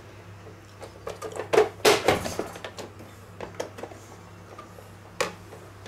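Sharp plastic clicks and knocks from a plastic vegetable dicer being handled, its orange lid and insert pulled and tapped against the container, with a cluster of knocks about two seconds in.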